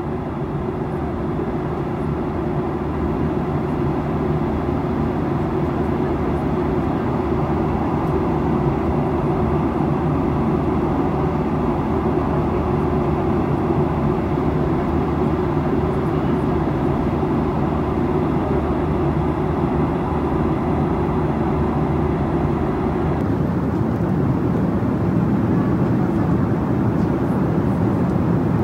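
Boeing 737-800 jet airliner heard from inside the cabin: a steady, loud low rumble with a few steady hums and a fainter hiss above it. About 23 seconds in, the higher hiss drops slightly.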